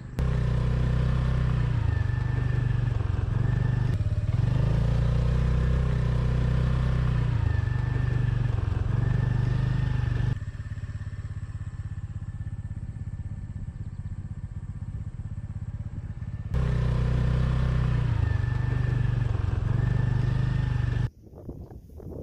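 Motorbike engine running, its pitch rising and falling. About ten seconds in it cuts suddenly to a quieter steady hum, comes back some six seconds later, and cuts off abruptly near the end.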